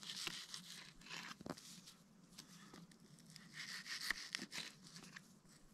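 Knife cutting a mackerel fillet into bait on a rock: faint scraping and tearing of the blade through the fish, with a few light clicks.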